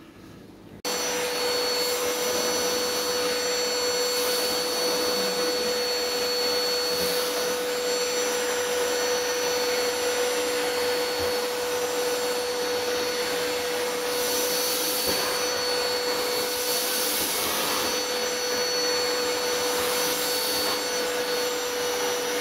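Vacuum cleaner switched on about a second in, then running steadily with a constant whine, its hose nozzle held against a cat's fur. The hiss of the suction swells briefly a few times in the second half.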